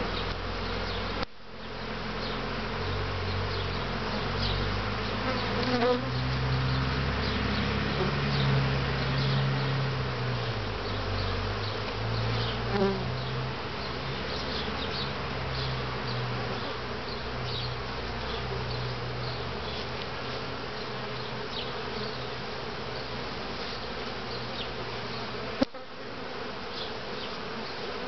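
A mass of honeybees buzzing around an opened top-bar hive, individual bees passing close with the hum wavering up and down in pitch. The bees are disturbed by the hive being opened and bars lifted out. A sharp click sounds about a second in and again near the end.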